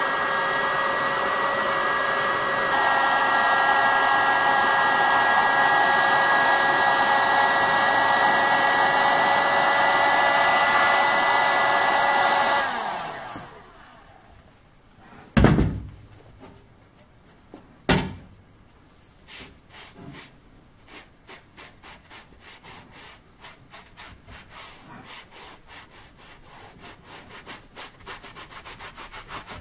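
An electric hot-air blower runs steadily, steps up about three seconds in, then winds down and stops after about thirteen seconds. Two sharp knocks follow. Then a scouring sponge scrubs back and forth in quick strokes over the helmet's steel shell.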